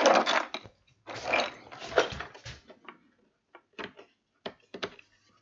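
A timber board sliding and scraping across a workbench top, then a scatter of light clicks and knocks as bench dogs are set into the bench holes and the board is pushed up against them.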